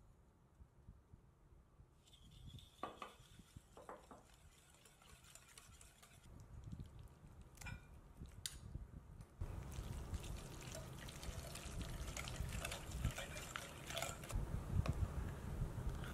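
A wire whisk stirring a wet batter in a glass bowl, a dense run of wet stirring with light clinks against the glass, starting about halfway through. Before it, quieter sounds of sugar being poured in and pumpkin purée spooned in, with a few sharp taps of a spoon on the bowl.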